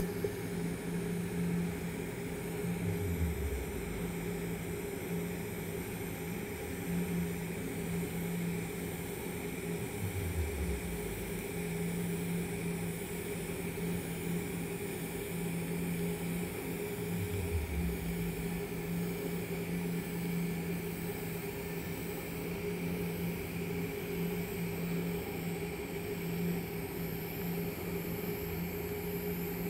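TIG welding arc on stainless steel pipe, run at 175 amps from an Everlast Powertig 250EX inverter: a steady electric hum with hiss. A low sound falls in pitch three times, about seven seconds apart.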